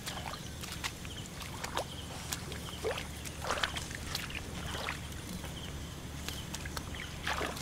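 Hands splashing and sloshing in shallow muddy paddy water while groping for fish by hand. A handful of irregular splashes comes at uneven intervals.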